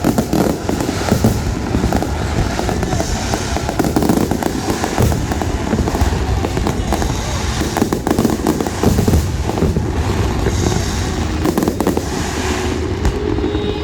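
Large fireworks display: a continuous barrage of shell bursts, booms and crackling, many going off in quick succession.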